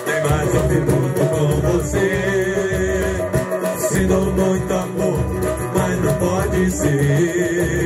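Live samba music: plucked guitar and shaker-type percussion with a man singing into a microphone.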